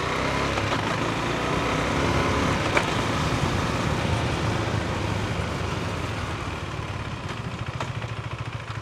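Husqvarna Svartpilen 401's single-cylinder engine running steadily, with a broad rushing noise over it, getting gradually quieter toward the end.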